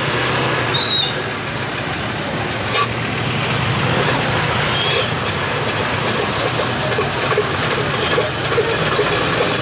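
Street traffic noise with a vehicle engine running and a steady low hum, with a few brief high squeaks.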